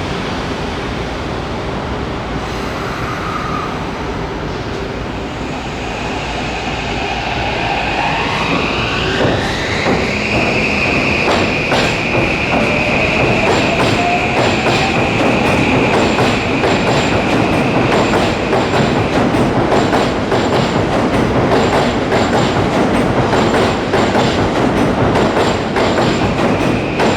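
Electric commuter train pulling away, its traction motors whining in a pitch that climbs over about two seconds and then holds steady, as the running noise grows louder. Steel wheels click over the rail joints.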